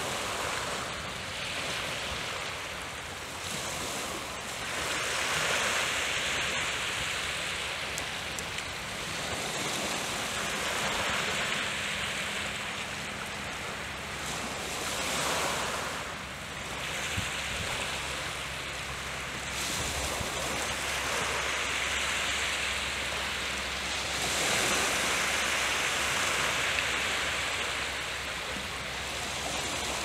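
Seawater washing against a shore with a breeze, a steady rushing that swells and eases every few seconds.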